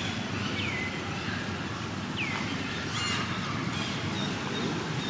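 A few short, high-pitched animal squeaks, each falling quickly in pitch, over a steady low rumble.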